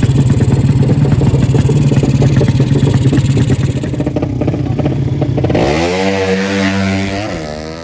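Drag-racing motorcycle engine running loud at high, steady revs with rapid firing pulses, then climbing in pitch about six seconds in and fading away.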